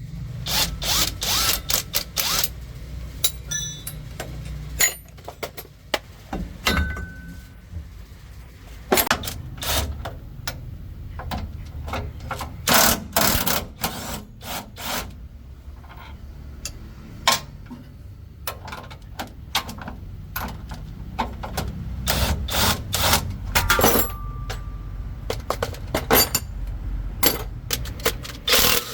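Mechanic's work on metal: short bursts from a power tool mixed with many sharp metal knocks and clanks, over a steady low hum.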